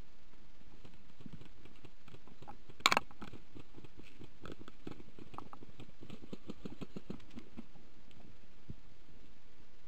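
Footsteps and scuffing through wet mud and undergrowth, a run of faint irregular knocks and rustles, with one sharp loud crack about three seconds in.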